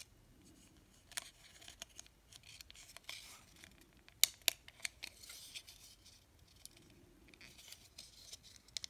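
Small plastic parts of an N scale model locomotive shell being handled and pressed together as a radiator piece is fitted by its tabs: light clicks and scrapes, with two sharper clicks a little past four seconds in.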